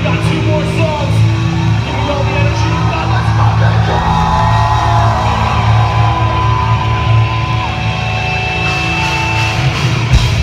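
Live metalcore band playing loud and steady through a venue PA, with heavy guitars over a sustained low bass drone and held melodic lines entering about four seconds in.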